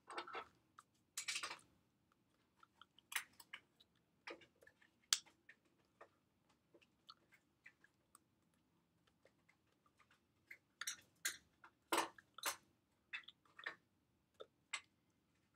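Quiet, irregular taps, slaps and brushing sounds of hands striking each other and the body while signing, busiest near the end.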